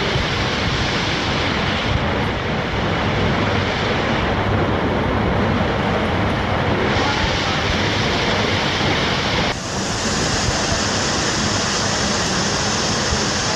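Hailstorm pelting down on a car, a loud dense steady roar heard from inside the car. It dips briefly about nine and a half seconds in and then turns hissier.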